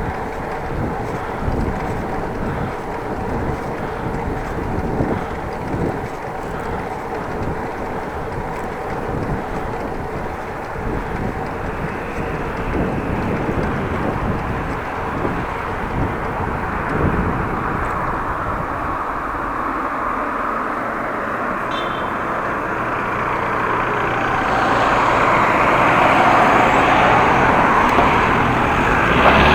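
Wind rumbling on an action camera's microphone during a bicycle ride, with road traffic noise. A louder rushing vehicle sound builds over the last few seconds.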